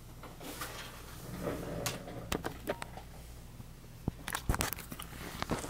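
Handling noise from the recording camera being picked up and moved: scattered clicks, taps and rubs, with a cluster of sharper clicks about four seconds in, over a steady low electrical hum.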